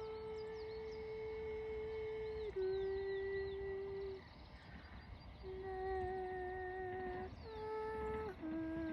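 A steady humming tone of unknown origin, held for a second or two at a time on one pitch before jumping abruptly to another, fading briefly near the middle. Short high chirps sound faintly alongside it.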